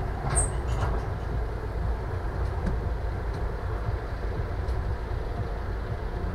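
Small narrow-gauge field railway locomotive and tipper wagon running slowly on the 800 mm track: a low, steady rumble, with a short high squeak about half a second in.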